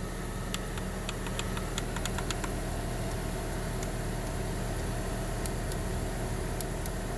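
Car engine idling steadily, with a scatter of light clicks from buttons pressed on a portable tire inflator's control panel as the pressure is set.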